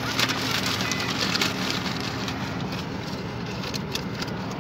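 Crumpled paper feed bag rustling and crinkling as it is handled, in bursts of crackle, over the low steady hum of the car.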